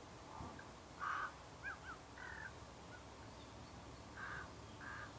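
Faint bird calls: three short, harsh caws, one about a second in and two near the end, with a few quick chirps between them.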